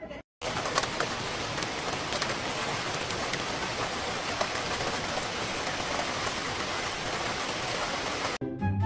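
A steady, even hiss with faint scattered ticks, cutting in abruptly just after the start and cutting off near the end.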